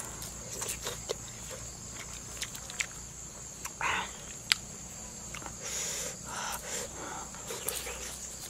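Close mouth sounds of a person eating grilled fish by hand: chewing and wet lip smacks, with scattered sharp clicks from picking at the fish on a leaf. A steady high-pitched drone runs underneath.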